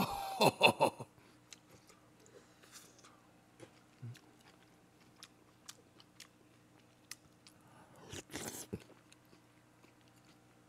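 A person chewing food close to a microphone, with a few louder mouth noises in the first second, scattered soft clicks, and a short burst of mouth noise about eight seconds in.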